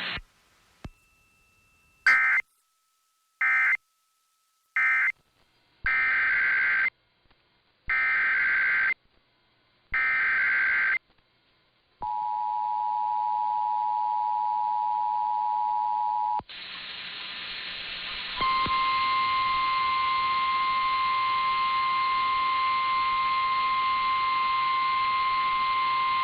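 Emergency Alert System broadcast tones: three short digital data bursts, then three longer bursts of about a second each, typical of the SAME data header. A steady two-pitch EAS attention signal follows for about four seconds. After a brief hiss, a long steady single-pitch tone starts, the kind used as the NOAA Weather Radio warning alarm.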